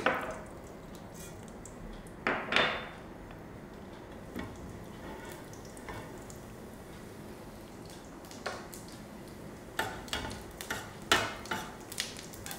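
A steel ladle clinking and scraping against a stainless steel frying pan while cumin seeds are stirred in hot oil. There are scattered light taps, with a quick cluster of clinks near the end.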